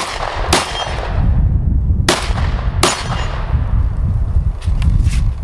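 Semi-automatic 12-gauge shotgun fired four times in a practical shooting stage: two shots in quick succession, then two more about a second and a half later, each with a ringing tail. A few faint clicks follow near the end.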